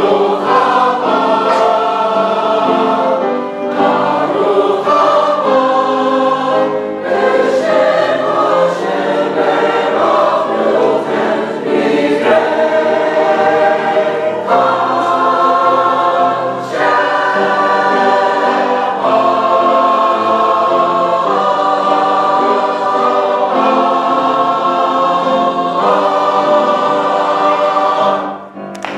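Mixed choir of men's and women's voices singing in full, sustained chords that shift every second or two, breaking off on a final chord just before the end.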